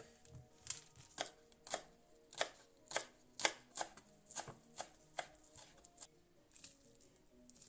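Kitchen knife chopping green onions on a bamboo cutting board: sharp knocks of the blade on the wood about twice a second, thinning out near the end.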